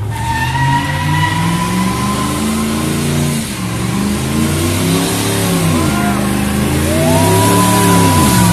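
GMC full-size van's engine revving hard during a burnout, its pitch climbing and dropping twice, over a steady squeal of spinning rear tyres; it grows louder as the van comes closer.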